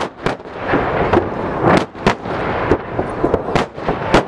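Fireworks salute: aerial shells bursting overhead in a rapid, irregular series of sharp bangs, about two a second.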